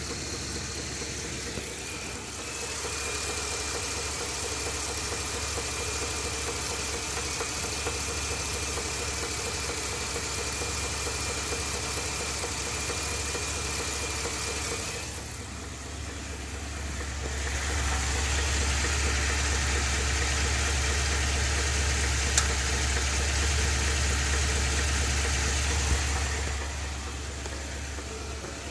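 Ford 7.3L gas V8 of a 2020 F-250 running, with an abnormal engine noise that persisted after an oil pump replacement; it was heard the night before the engine seized. Its loudness rises about two seconds in, dips briefly about halfway and rises again, and a faint high whine runs through the first half.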